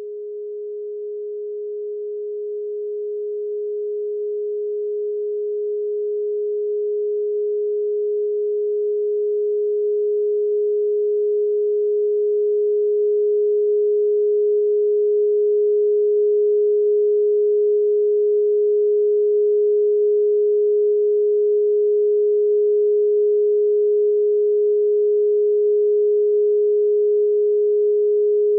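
A single pure, steady sine tone, a solfeggio meditation tone, swelling gradually over the first fifteen seconds or so and then holding level.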